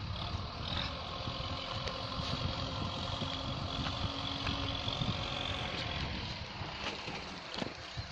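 JCB backhoe loader's diesel engine running steadily, a continuous engine hum, over a low rumble of wind on the microphone.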